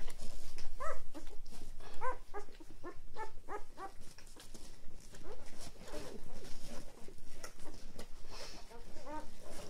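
Six-day-old puppies squeaking and whimpering in a run of short, high calls between about one and four seconds in, with a few more near the end, over soft rustling as they nurse and squirm against their mother.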